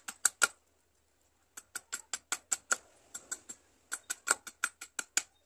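A large knife blade chopping quickly down a small teak-wood stick held upright on a wooden block, about six sharp knocks a second in runs, with a pause of about a second near the start and short breaks later. The wood is being roughed into shape for a lure body.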